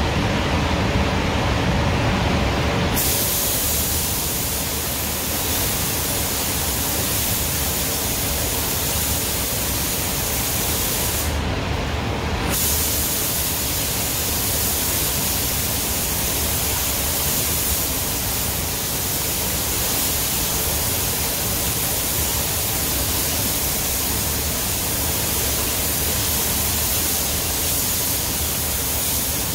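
Steady rush of spray-booth air, joined about three seconds in by the hiss of a compressed-air spray gun applying waterborne basecoat; the gun hiss stops for about a second near twelve seconds in, then runs on.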